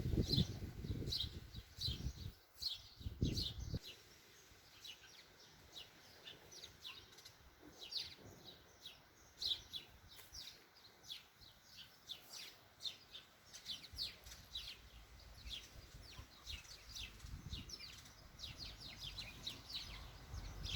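Small garden birds chirping continually, short high notes that drop in pitch, several a second. Wind rumbles on the microphone for the first few seconds and again from the second half, growing toward the end.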